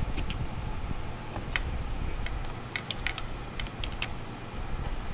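Irregular light metallic clicks and taps of hand tools and sockets being handled, about ten in five seconds, over a low steady background hum.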